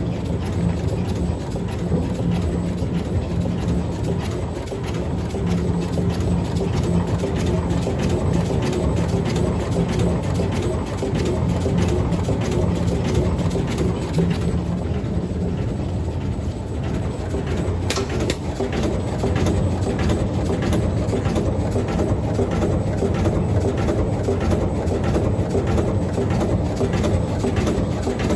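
CNC paper pleating machine running: a steady mechanical hum, and in the second half a fast, regular clatter of the pleating action, with one sharp click partway through.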